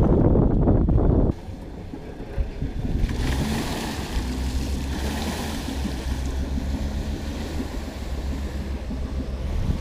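A crossover SUV's engine running with a steady low hum as it pulls a boat trailer up out of the water, with water splashing from its wheels, strongest a few seconds in. A loud low rumble in the first second cuts off abruptly.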